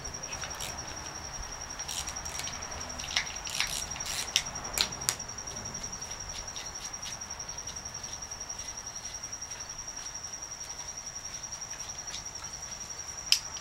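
An insect's steady, high, evenly pulsing trill. Against it come a few sharp metal clicks, several about three to five seconds in and one near the end, as the starter solenoid's terminal nuts and parts are handled.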